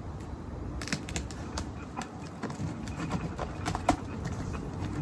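Irregular knocks, clicks and scrapes from a large cardboard box being handled and opened, with louder knocks about a second in and near four seconds in.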